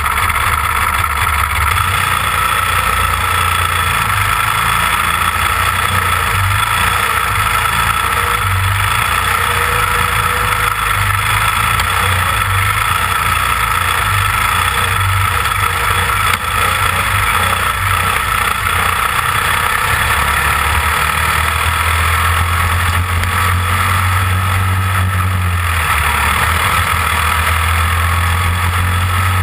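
Onboard sound of a caged dirt-oval racing kart's small single-cylinder engine running steadily at low revs while the kart rolls slowly, heard close up from the camera on the kart.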